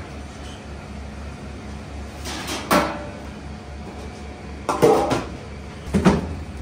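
Stainless steel kitchen trays clanking against a steel counter, three sharp metallic knocks with a short ring. Under them is a steady low hum.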